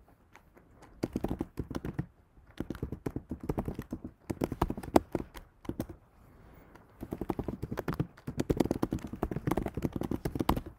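Typing on a computer keyboard: quick runs of key clicks in three spells with short pauses between, as terminal commands are entered.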